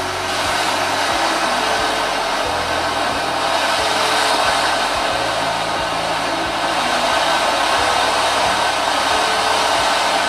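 Homemade black-powder firework fountain (gerb) with a magnalium silver-spark composition, burning with a steady, loud rushing hiss.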